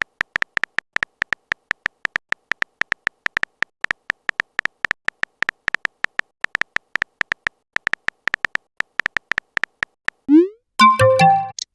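Chat-app typing sound effect: rapid, very short beeps at one pitch, several a second, as text messages are typed out. About ten seconds in the beeping stops for a brief rising swoop and a short electronic jingle of a few notes.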